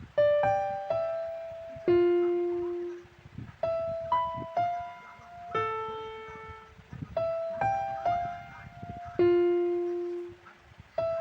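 Background music: a slow, simple melody of single struck notes, each ringing out and fading before the next.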